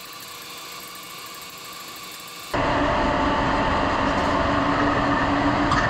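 Faint hiss, then about two and a half seconds in a steady industrial machinery hum cuts in abruptly, with a low steady tone running through it.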